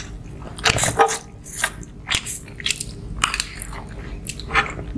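Close-up eating sounds: rice noodles (pancit bihon) being slurped and chewed, with short irregular slurps and mouth sounds several times a second.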